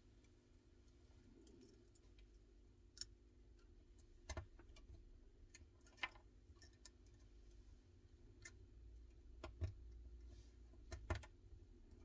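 Faint, sparse clicks and taps, about six spread irregularly over the stretch, as small repair tools and parts are handled while the earpiece and proximity sensor are fitted onto a new iPhone 12 screen. A low steady hum runs underneath.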